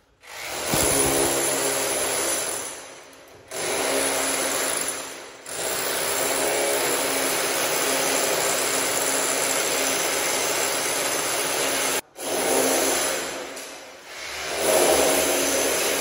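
Handheld electric power tool cutting into a brick wall, running in several long bursts that stop and restart, some winding down before the short pauses.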